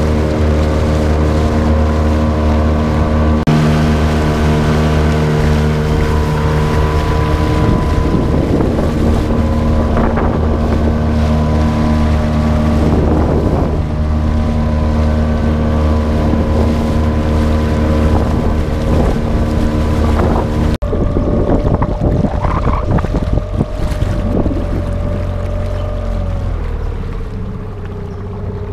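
A motorboat engine running at a steady speed, with water splashing and wind buffeting the microphone. After a sudden change about two-thirds of the way in, the engine note drops lower near the end as it slows.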